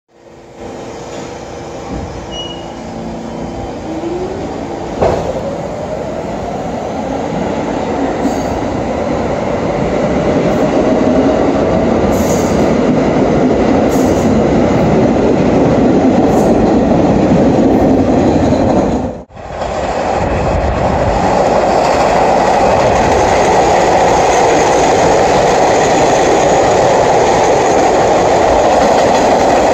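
An R46 New York subway train pulls out, its traction motors whining upward in pitch as it gathers speed over rising wheel-and-rail noise. After a sudden cut, an R68-series subway train runs by with steady loud wheel and rail noise.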